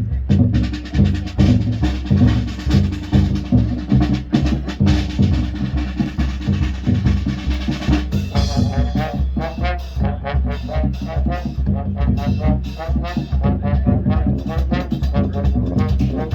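High school marching band playing its field show: the drums keep a steady beat under low held notes, and about halfway through a brass melody comes in over the percussion.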